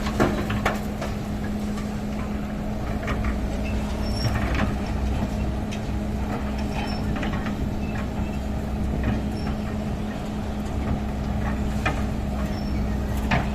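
Heavy diesel machinery running steadily, with a constant engine hum and a low rumble, and scattered short clunks and knocks.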